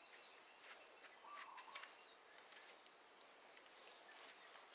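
Faint outdoor ambience: a steady high-pitched insect trill, with a few short bird chirps and a warbled call about a second and a half in.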